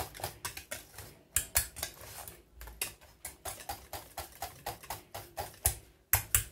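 Wire whisk beating a thick chocolate mixture in a stainless steel saucepan, its wires clicking against the pot in quick, even strokes of about five a second, with a couple of brief pauses.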